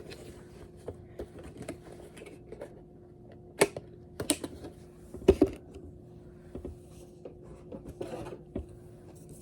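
Packaging being handled and unwrapped: a scatter of small clicks and rustles, with a few sharp, louder clacks a little past the middle.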